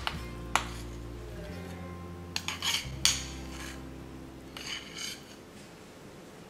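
Metal offset spatula clinking and scraping against a ceramic bowl as chocolate icing is scraped out onto the cake: a few sharp clinks, the loudest about three seconds in, and short scrapes. Soft background music with held notes underneath.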